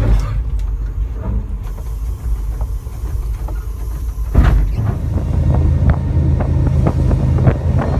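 Inside a moving locomotive cab: low rumble of the train with rattles and knocks as it pushes through snow-laden branches, and a loud thump about four and a half seconds in as it strikes the fallen tree. After the thump a steady low hum and clatter grow stronger.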